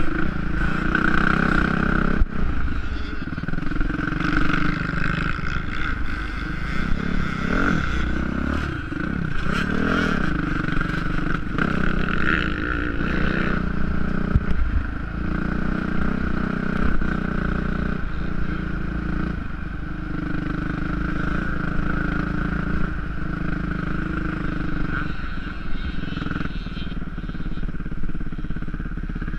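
450cc motocross bike's engine, heard from a GoPro on the bike, revving up and down over uneven ground and then running more steadily in the second half, with the chassis clattering now and then.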